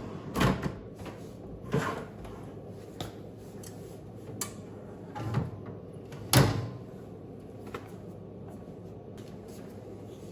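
Bottom drawer of a Sub-Zero refrigerator being pulled all the way out and lifted off its slides: a series of separate knocks and clunks, the loudest about six seconds in.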